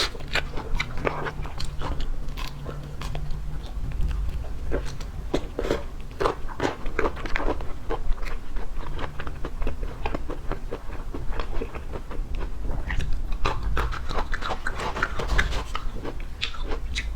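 Close-miked chewing and crunching of seafood, with many quick, irregular crunches and clicks throughout.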